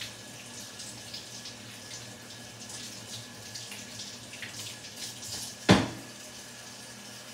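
Kitchen tap running into a stainless steel sink, with small clinks of things being handled in it and one sharp knock a little over halfway through.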